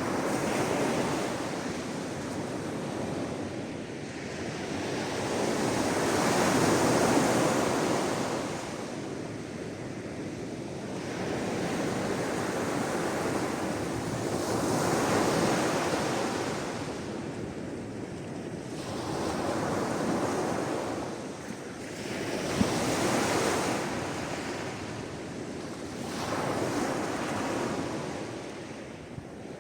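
Sea waves washing in and draining back, each swell rising and falling about every four seconds.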